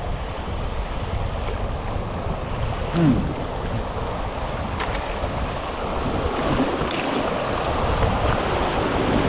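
Rushing whitewater of a river rapid as a kayak heads into it, with wind noise on the microphone. The rush grows louder toward the end, with a few light clicks and a brief louder sound about three seconds in.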